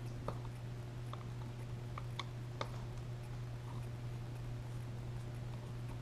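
A few small, sharp clicks and ticks from the primer bulb assembly of a small Walbro diaphragm carburetor being pried and handled, over a steady low hum.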